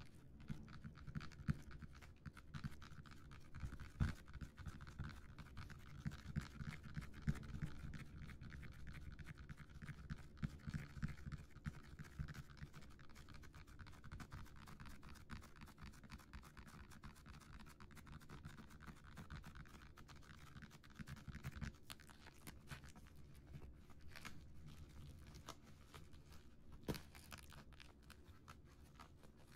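Fingertips scratching and rubbing a plastic-wrapped cardboard box, with soft crinkling of the cellophane wrap and a few sharper ticks. Faint and continuous.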